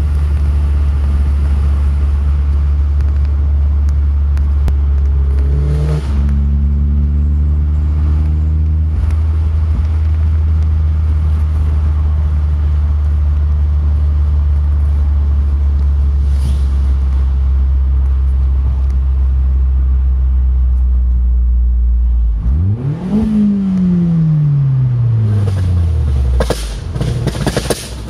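Car engine and road noise heard inside the cabin while driving at speed: a loud steady low drone, with an engine note rising in steps about six seconds in. About 22 seconds in the engine note falls steadily away, and near the end comes a quick run of sharp cracks and pops.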